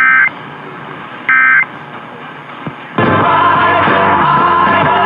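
Two short bursts of EAS end-of-message data tones, the warbling two-tone digital signal about a second apart that marks the end of the alert, heard over AM radio hiss. About three seconds in, the station's music with singing starts up loudly.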